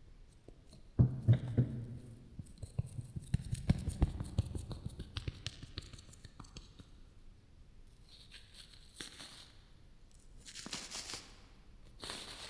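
Close-miked ASMR handling sounds: a sudden knock about a second in, then a quick run of crackling taps and clicks, then three short scratchy rustles near the end.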